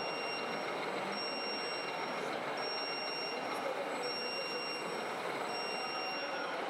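Reversing warning beeper sounding in long high beeps, each about a second long with short gaps, repeating steadily over a constant background noise.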